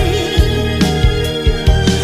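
Pop-rock band music between sung lines: sustained guitar and keyboard chords over a steady drum beat, with a sung note trailing off at the start.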